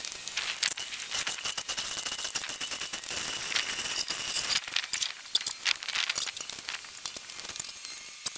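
Chain fall (hand chain hoist) rattling and clicking as it lowers a heavy load. The clicking is dense for the first half and thins out after about five seconds.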